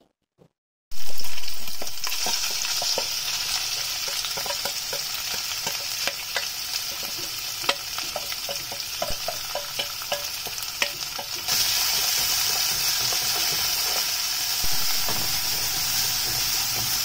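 Chopped shrimp sizzling and spitting in hot oil in a frying pan, starting suddenly about a second in as they hit the oil. Wooden chopsticks click and scrape against the pan as the shrimp are stirred, and the sizzle grows louder a little past the middle.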